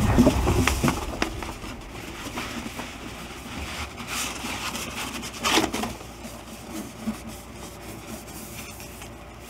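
A large glossy paper poster being handled and rolled up: a few short rustles and scrapes of the sheet against the table, the loudest about 4 and 5½ seconds in, over low room noise.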